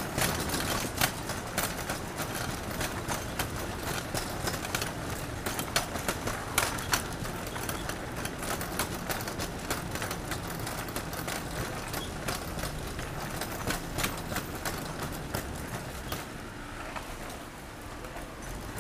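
City street sounds: a steady hum of traffic with frequent, irregular sharp clicks and taps. It drops a little quieter near the end.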